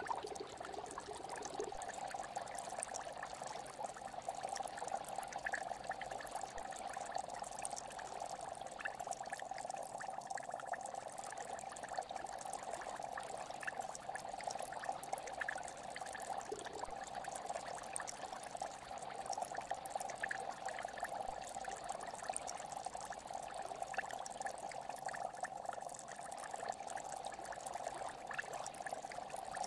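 Aquarium water bubbling and trickling steadily from the tank's aeration, with many small scattered pops.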